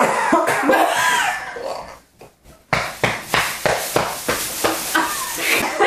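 People laughing, then after a short pause a run of sharp, rapid coughs.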